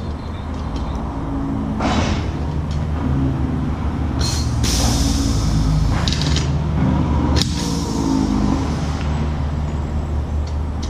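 Pneumatic rivet gun on an air line firing, with sharp hissing air blasts four or five times, the longest about four seconds in, over a steady low machine hum.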